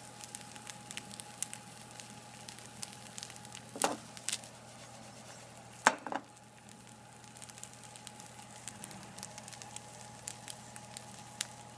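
Chinicuiles (maguey red worms) frying in a hot pan: a soft, steady sizzle studded with many small crackles and pops. A few louder clicks come about four and six seconds in.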